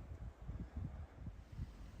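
Wind buffeting the microphone outdoors: a low, uneven rumble that rises and falls in gusts.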